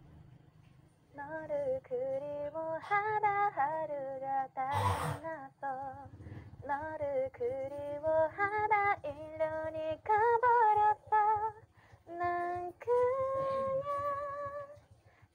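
A young woman singing unaccompanied, a slow melody of held notes with a slight vibrato, read from lyrics on her phone. A short noise breaks in about five seconds in.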